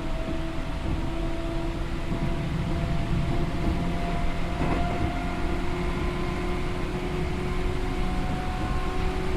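Seibu New 2000 series electric train heard from inside the car: the traction motors hum, their tones rising slowly as the train gathers speed, over steady wheel and rail rumble. A faint click comes about halfway through.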